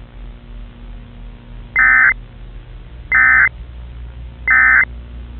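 Emergency Alert System end-of-message (SAME EOM) data bursts: three short bursts of harsh digital tone about a second and a half apart, marking the end of the alert.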